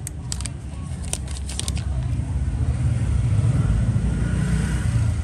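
A few sharp metallic clicks from a slim Zippo lighter being handled in the first two seconds, then a steady low rumble of motor traffic, which is the loudest sound.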